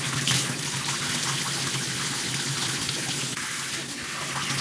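Handheld shower head running steadily, its spray splashing onto hair and into the bathtub.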